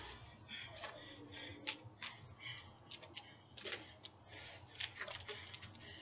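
Faint, irregular taps, clicks and swishes of an LED hula hoop being spun around the body and overhead on the arm.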